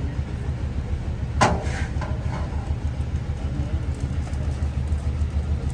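A steady low mechanical rumble that pulses rapidly, like a running engine or motor. About a second and a half in comes one sharp clank with a brief ringing after it.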